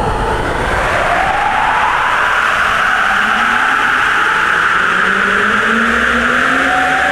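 Sapporo Subway Tozai Line 8000 series rubber-tyred train pulling out of the station and accelerating: several whining motor tones climb steadily in pitch over a loud, steady rushing noise.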